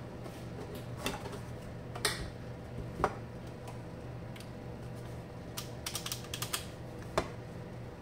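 Plastic case of a Zimmer ATS 2000 tourniquet unit being pried open: scattered clicks and knocks as the front panel comes away from the back housing, with a quick run of clicks a little past the middle, over a steady low hum.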